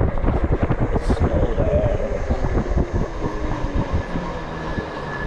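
Wind buffeting the microphone and tyre rumble from a Synch Super Monkey 750-watt electric bike ridden fast on pedal assist level four, with a thin whine from the electric motor. The rush eases a little after about three seconds.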